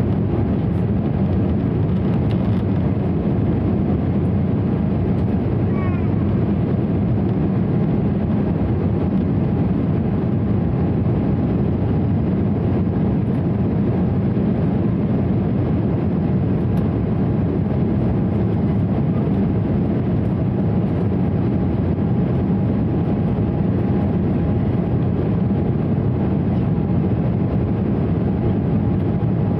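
Steady cabin noise of an Embraer 195 climbing, heard from a window seat by the wing: the low rumble of its CF34-10E turbofan engines and the airflow, with a faint steady hum over it.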